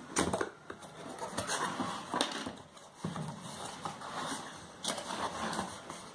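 Cardboard box being opened by hand: flaps scraping and rubbing, with several sharp clicks and taps, the loudest near the start and about two seconds in.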